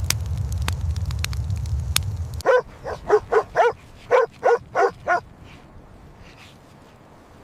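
A dog barking: about eight short yapping barks, roughly three a second, starting after a low rumble that cuts off abruptly about two and a half seconds in.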